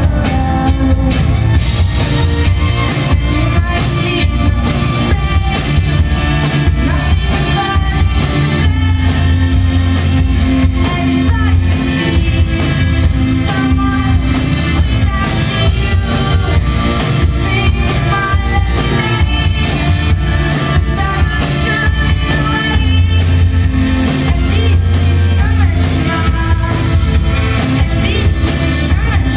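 Live pop band performance: a female lead vocal over piano, drums and strings, with a steady beat and heavy bass, heard from the audience in a large concert hall.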